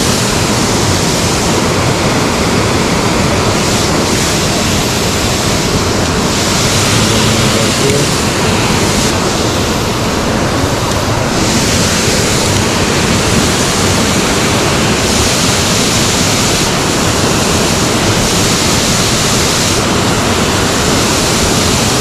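Creek water rushing over stones, a loud steady rush with no let-up.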